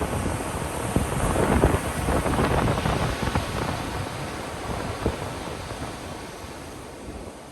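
Ocean waves breaking on a beach: a surge of surf swells about a second in, then washes back and slowly fades.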